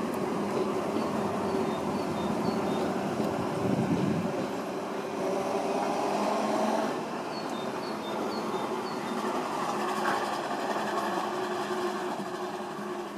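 Berlin S-Bahn class 480 electric train running along the platform, with steady wheel and running noise that grows quieter over the second half as it draws away.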